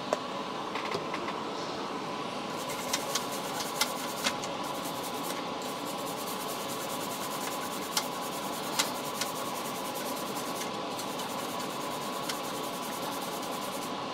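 Toothbrush bristles scrubbing isopropyl alcohol over a circuit board's fresh solder joints, a fast scratchy rubbing from about two and a half seconds in to about ten seconds, with a few light clicks. A steady fan hum runs underneath.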